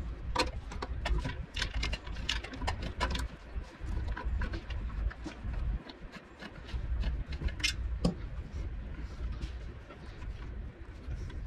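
Irregular small metal clicks and taps of hand tools and parts as a carburetor is worked back onto a 5 hp Briggs & Stratton engine. The clicks are busiest in the first three seconds or so, with a sharper pair about eight seconds in.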